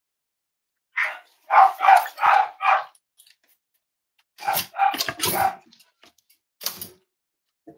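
Cavalier King Charles spaniel barks: a quick run of about five barks, a second run of several barks a second and a half later, and one last bark near the end.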